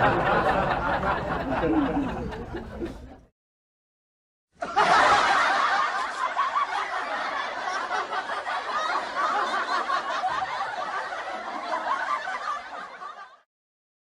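Stock laughter sound effects: one laugh fades out about three seconds in, and after a short silence a second laugh clip runs for about nine seconds before stopping.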